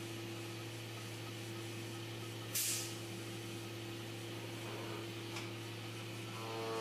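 CNC milling machine running while it machines a brass workpiece on a rotary axis, a steady hum with a low tone. A short, sharp hiss comes about two and a half seconds in.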